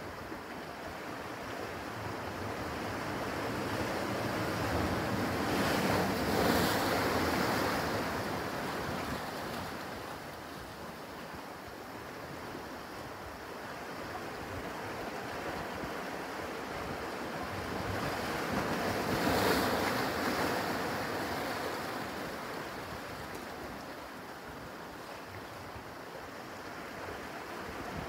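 Small ocean waves washing in over a rocky shoreline, a steady surf wash that swells into two louder breaks, about six and nineteen seconds in.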